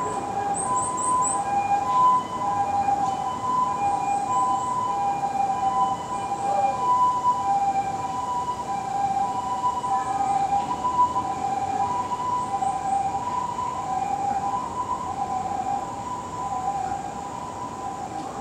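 Japanese ambulance siren sounding its two-tone hi-lo call, switching back and forth between two pitches about every half second.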